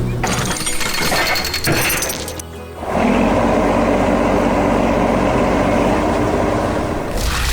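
Background music, with a clattering, shattering sound effect over the first two seconds.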